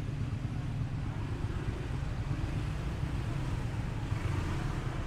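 Steady low rumble of street traffic, vehicle engines running close by.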